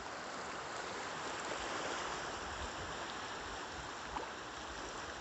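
Sea surf washing onto a shingle beach: a steady rushing hiss that swells a little in the first half.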